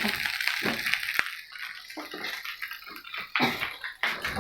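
Nasi goreng frying in a pan, the sizzle faint and dying away after about a second, with a few short sharp knocks through the rest.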